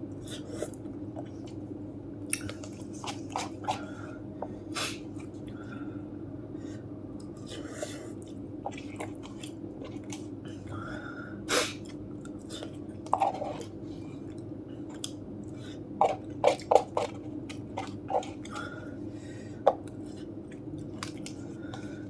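Close-up chewing and mouth sounds of a person eating spicy instant cup noodles, with scattered short smacks and clicks over a steady low background hum.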